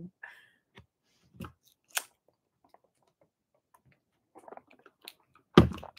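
A few faint, scattered clicks and small mouth sounds of a person sipping through a straw, with near quiet between them. A voice starts up near the end.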